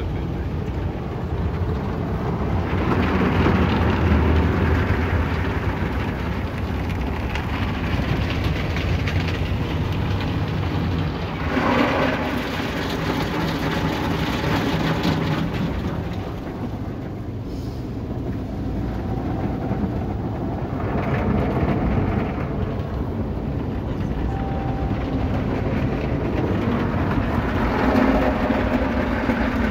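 Cloth brushes of a MacNeil tunnel car wash scrubbing over the car amid water spray and machinery rumble, muffled by the car's cabin. The noise swells several times as the brushes pass over the body and windows.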